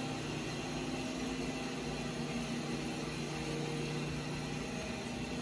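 Steady hum of running shop machinery, several low tones over an even hiss, with the lowest tone dropping out about four and a half seconds in.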